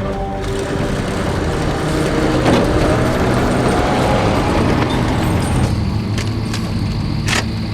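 A motor vehicle running with a steady rumble and road noise; a faint rising tone a few seconds in.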